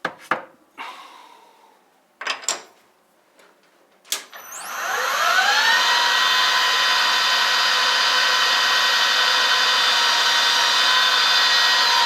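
A few sharp handling clicks and knocks, then about four seconds in a Harrison M250 metal lathe starts up. Its whine rises in pitch as the spindle spins up, then holds steady as it runs, ready for a chamfer cut on the ring.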